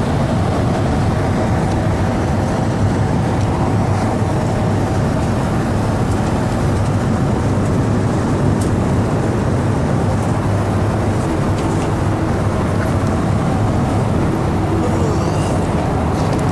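Airliner cabin noise: the steady drone of the jet engines and airflow with a low hum underneath.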